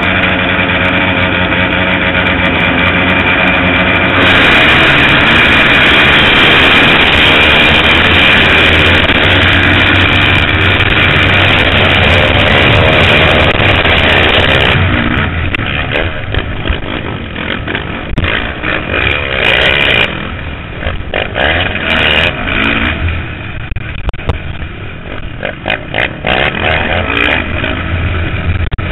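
Motocross dirt bikes revving together on the start line, then a sudden louder full-throttle launch about four seconds in. After that the rider's own bike runs hard among the others, its engine rising and falling with throttle and gear changes.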